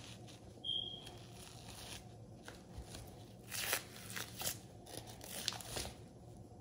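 Soft, scattered tearing and crinkling as the membrane is peeled off the back of a rack of raw beef ribs and the rack is handled on plastic wrap. Several short scrapes, louder around the middle.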